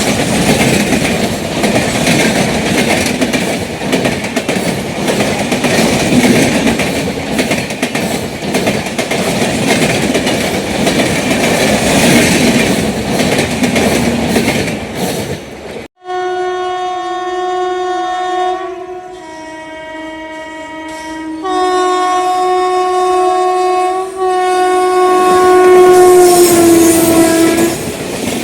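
Indian Railways passenger train running on the track with a dense rush of wheel and rail noise, then after an abrupt cut about halfway, a locomotive's multi-tone horn sounding four long blasts in a row, the last and loudest dropping in pitch as it ends.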